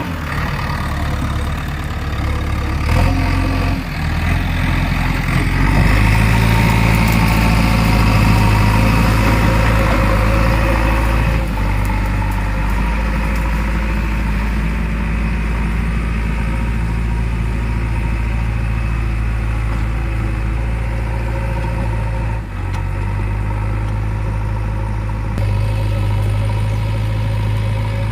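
JCB 3DX backhoe loader's diesel engine running steadily, its note and loudness shifting up and down a few times.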